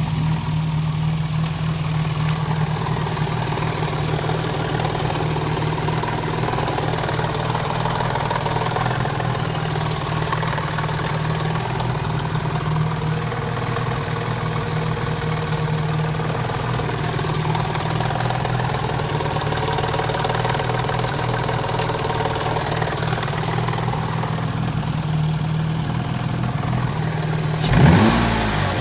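Cosworth BOB V6 engine idling steadily with the knock that is its fault. Near the end the revs rise briefly and drop back to idle.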